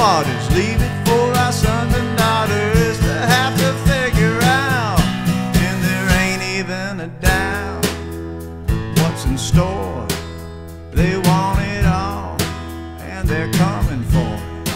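Acoustic band playing a song: a man singing over a strummed acoustic guitar, with snare drum and cymbal hits keeping the beat.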